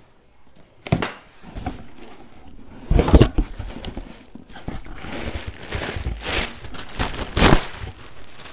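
Cardboard shipping box being opened by hand: flaps folded back and the paper wrapping inside rustling and crinkling in irregular bursts, loudest about three seconds in and again near the end.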